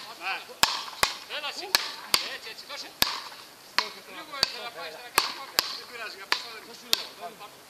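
Wooden paddles hitting a ball back and forth in a fast rally: a string of sharp clacks, about a dozen, roughly one every half second to second.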